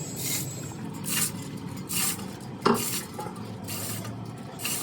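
Hand metalwork: hissing scraping strokes about once a second over a steady low hum, with one sharp metallic clink about halfway through.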